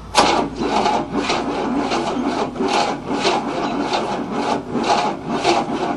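1967 Cadillac V8 being turned over by its starter, cranking slowly with a rhythmic rasp about twice a second, without catching. The owner suspects the timing is too far advanced; the engine isn't cranking fast enough to start.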